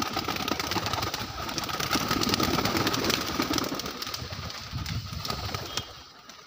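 A flock of pigeons flapping their wings as they burst out of an opened coop, a dense flurry of wingbeats with some cooing. It dies down about five seconds in.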